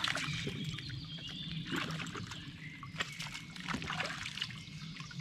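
Water of a small stream trickling and splashing, with many short sharp splashes.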